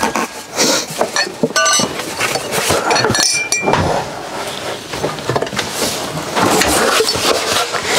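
Glassware being handled, clinking and knocking together, with a couple of glasses ringing briefly about one and a half and three seconds in.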